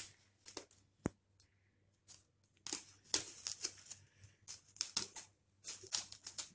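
Knife tip cutting out the stalk of a raw green bell pepper: a series of short, irregular crisp crunches as the blade works through the firm flesh, with one sharp click about a second in.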